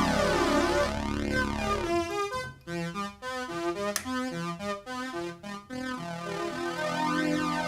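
Opus, a Soviet 1980s analog polyphonic string synthesizer, playing a held chord with a sweeping shimmer, then a run of short detached notes from about two seconds in, then held notes again near the end. A single sharp click sounds near the middle.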